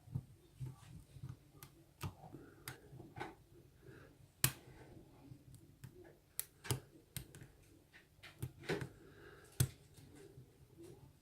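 Lock picks working the pins of an Abus 54T1/50 padlock held in a vice: single-pin picking, with about a dozen irregular small metal clicks and taps, the loudest about four and a half seconds in.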